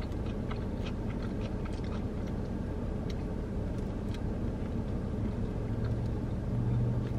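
Close-up chewing of a sub sandwich, with small irregular clicks from the mouth and food. Under it runs a steady low hum inside the car.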